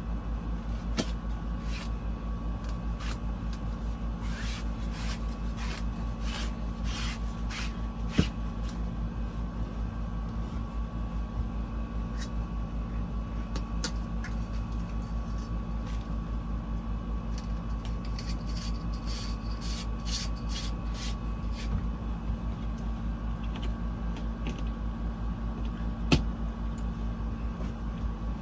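Steady low mechanical hum with a fast low pulsing, over which curtains and their hardware are handled: many light clicks and rustles, with two sharper knocks.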